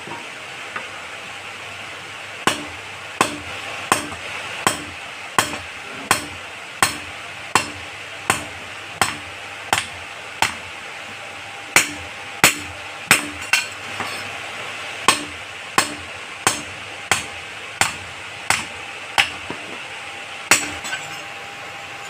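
Hand hammer forging a red-hot iron cleaver blade on a small anvil. Sharp ringing strikes come about every three-quarters of a second, starting a couple of seconds in, with two short pauses.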